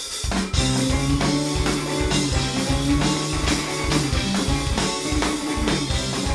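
Live band playing an instrumental passage: guitar, bass and drum kit, with a steady beat.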